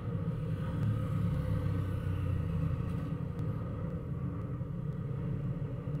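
Steady low rumble, swelling a little between about one and three seconds in.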